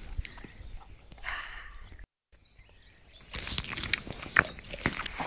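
Dog eating food off the grass: irregular crunching, chewing and snuffling clicks with rustling in the grass, sparse at first and busier in the second half, broken by a brief gap of silence about two seconds in.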